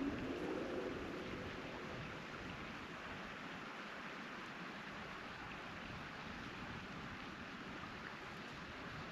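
Steady rushing of flowing river water, a continuous hiss, slightly louder in the first second or two.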